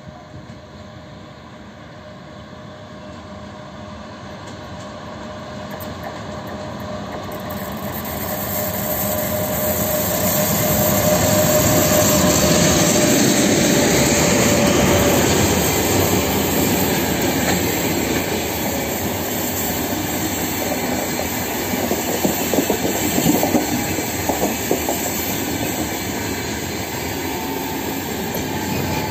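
An EP1M electric locomotive hauling a passenger train approaches and passes, its noise growing steadily louder over the first ten seconds or so, with a steady whine as it nears. Then the passenger coaches roll past with a clickety-clack of wheels over the rail joints and some wheel squeal, the clatter sharpest a little after the middle.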